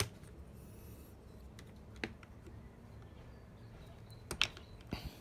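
Hard plastic toy parts of a Hasbro Iron Man armory playset clicking as the missile launcher base is unclipped and snapped onto the other side: a few sharp separate clicks, the loudest about four and a half seconds in.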